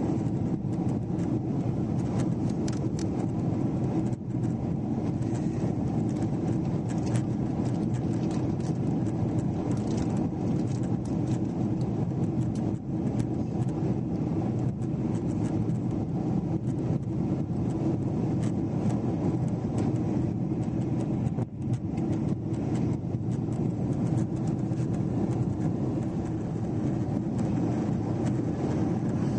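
Cabin noise inside a Boeing 777-300 airliner on approach: a steady drone of engines and airflow, with scattered light clicks.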